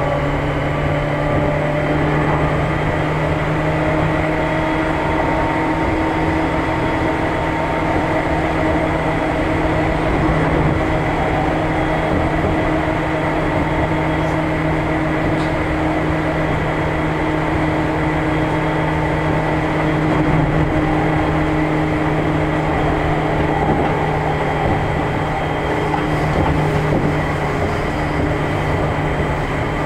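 Running sound heard from inside a Seibu New 2000 series electric train with field-chopper control. The traction motor and gear hum falls slowly in pitch as the train eases its speed. Steady wheel-and-rail rumble and a constant high whine sit underneath.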